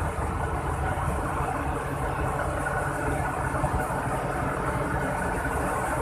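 Diesel locomotive engine running close by with a steady low rumble as the locomotive moves slowly along the track.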